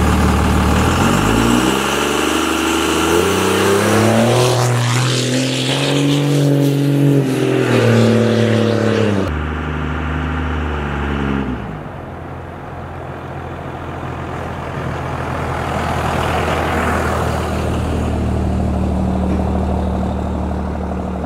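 24-valve Cummins diesel in a second-gen Dodge Ram: the engine pitch rises over a few seconds as it revs, holds, drops off about nine seconds in, and the engine then runs on at a steady idle. A broad rush of noise swells and fades in the second half.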